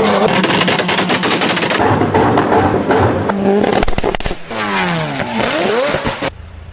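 Car exhaust popping and crackling in rapid volleys of sharp bangs over a running engine. Late on, the engine's pitch drops and then rises again as it revs, before the sound cuts off abruptly to a low steady hum.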